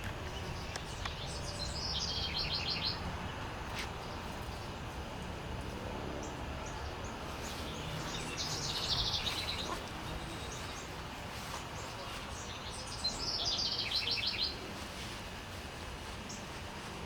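A songbird singing the same short song three times, several seconds apart, each a quick run of high, rapidly repeated notes, over a steady low outdoor background.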